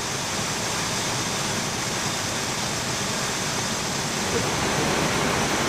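Steady rushing noise on an Airbus A320 flight deck in flight: air streaming past the cockpit and the ventilation hiss, even and unbroken.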